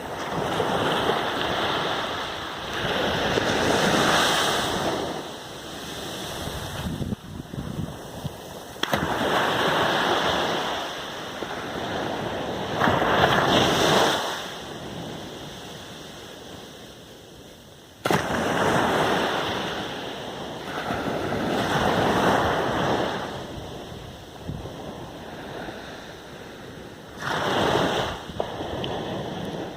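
North Sea waves breaking and washing up a beach, the surf swelling and fading every few seconds.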